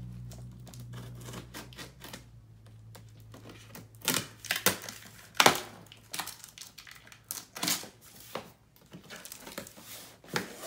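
Packing tape on a cardboard box being slit with a scissors blade, then the flaps pulled open with a run of sharp crackling rips of tape and cardboard, loudest about five seconds in.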